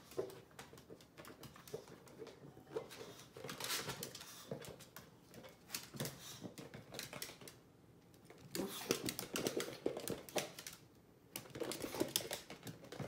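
A small curly-coated dog's claws clicking irregularly on a hardwood floor as it trots and turns about, with a quieter spell about eight seconds in.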